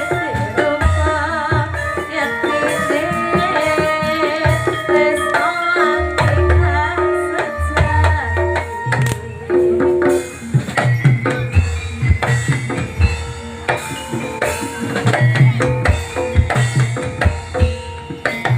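Live jaranan ensemble music: Javanese hand drums and gamelan-style percussion under held melodic tones. A wavering melody line sounds in the first half. From about halfway, the drumming comes forward with dense, heavy strokes.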